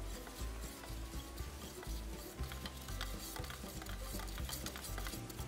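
Wooden stir stick mixing red paint in a metal paint can, wet swishing with scattered clicks of the stick against the tin, as settled pigment is worked back into the paint.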